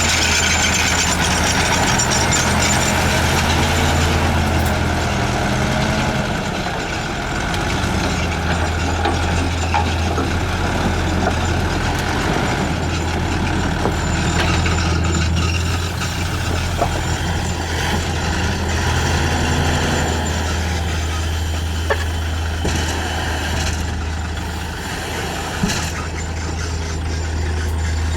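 Heavy bulldozer diesel engine running under load, its pitch rising and falling in slow swells, with a few sharp metallic clanks in the second half.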